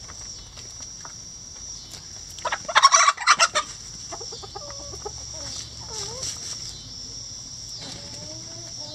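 Backyard chickens clucking softly while they forage. About two and a half seconds in comes a loud, choppy burst of squawking lasting about a second.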